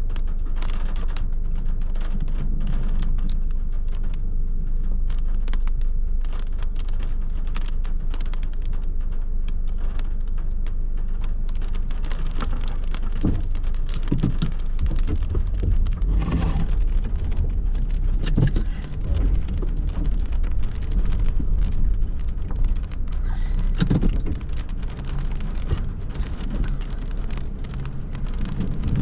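Heavy rain in a severe thunderstorm: a dense patter of drops ticking against a steady low rumble. The rumble and the rain grow louder and heavier about halfway through, with another surge near the end.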